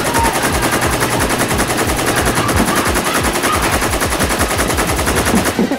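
Automatic machine-gun fire sound effect: one long, rapid burst of about ten shots a second that cuts off suddenly near the end.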